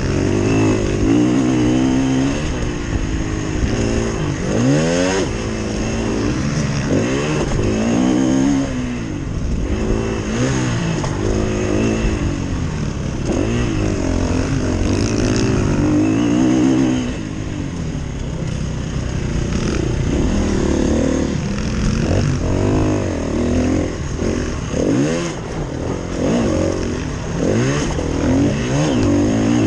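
KTM 350 EXC-F's single-cylinder four-stroke engine at race pace, revving up and dropping back again and again as the rider shifts gears and throttles through the bends.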